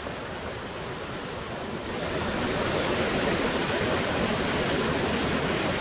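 Small stream running over riffles into a pool: a steady rush of water that grows louder about two seconds in.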